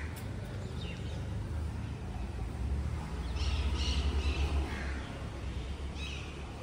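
Crows cawing a few times, with a cluster of calls around the middle, over a low rumble that swells at the same point.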